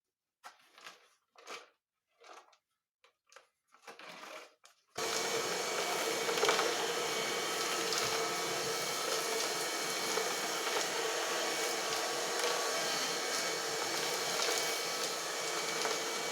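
A homemade vacuum cleaner, driven by the 12-volt fan motor from an old hair dryer, switches on about five seconds in and runs steadily with a hum and a whine. Before it starts there are a few short handling noises.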